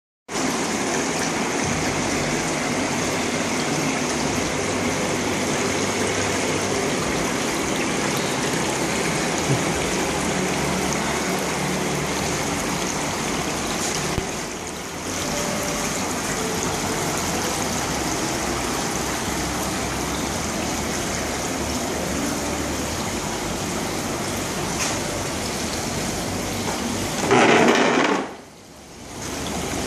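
Swim spa running, its swim jets churning the water and its cascade pouring, a steady rushing and splashing over a low pump hum. Near the end a brief louder rush is followed by a short drop.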